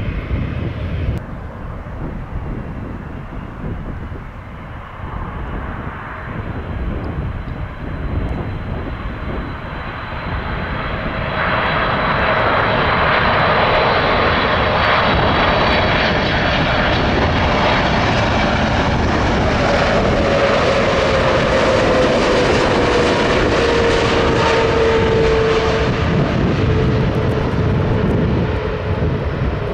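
Boeing 747-8F freighter's four GEnx turbofan engines on final approach. The engines are quieter at first and grow much louder about a third of the way in. A whine slowly falls in pitch as the jet passes, and the sound eases off near the end as it flares to land.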